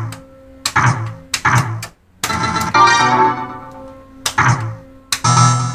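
Japanese pachislot machine being played: sharp clicks and thunks of the lever and stop buttons, each followed by the machine's bright electronic tones that ring out and fade.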